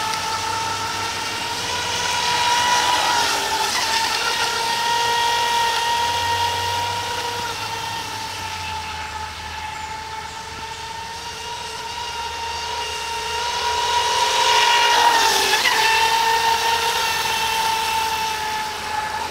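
Atomik Barbwire 17-inch electric RC speed boat running at speed: a steady high-pitched motor whine that grows louder twice and dips briefly in pitch twice.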